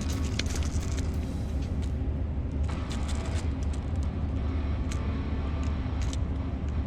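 Steady low rumble with scattered light clicks and taps over it.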